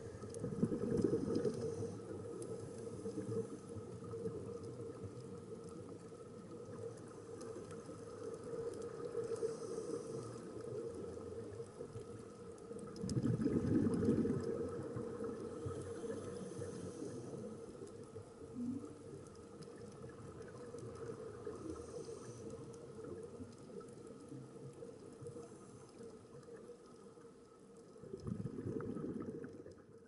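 Underwater noise picked up through a camera housing: a muffled steady rush, with a scuba diver's regulator letting out a surge of exhaled bubbles three times, about a second in, around the middle, and near the end.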